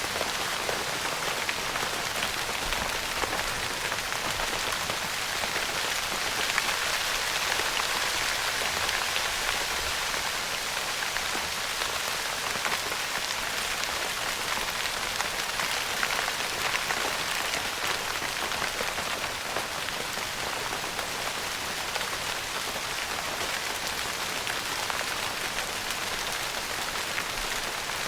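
Steady rain pattering on a tent's fabric roof, a dense even patter of fine drop ticks.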